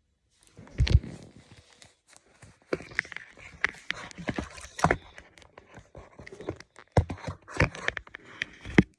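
Irregular knocks, clicks and rustling, with a few louder thumps.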